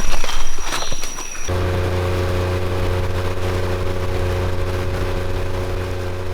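A steady high insect whine over scattered clicks, cut off abruptly about one and a half seconds in by a steady low droning hum that slowly fades.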